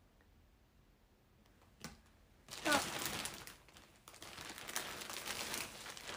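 A shopping bag crinkling and rustling as it is handled and opened, starting about two and a half seconds in after a quiet stretch with a single click.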